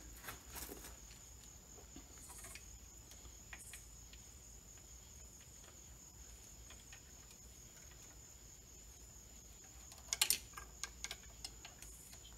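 Faint metallic clicks and knocks of a socket wrench and extension working the Vanos pump bolts, with a short burst of sharp clicks about ten seconds in.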